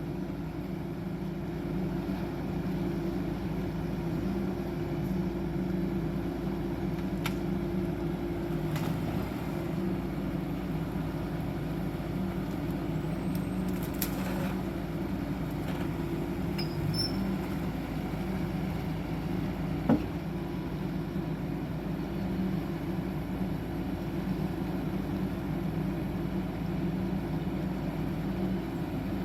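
CAT 420F backhoe loader's diesel engine running steadily, with a single sharp knock about two-thirds of the way through.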